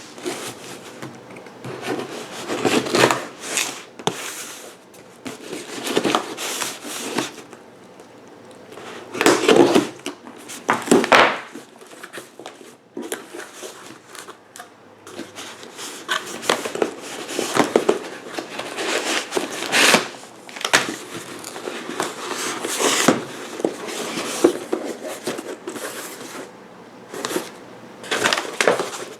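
Packaging of a replacement refrigerator evaporator fan motor being opened and handled by hand: irregular rustles, scrapes and short knocks with pauses between them.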